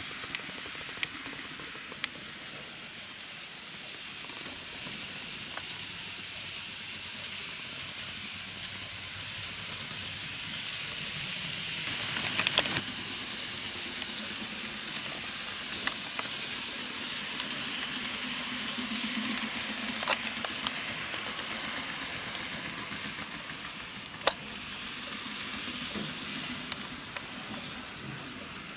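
N gauge model trains running on the track: a steady hissing rumble of small wheels and motors, swelling about twelve seconds in as a train passes close, with sharp clicks every few seconds.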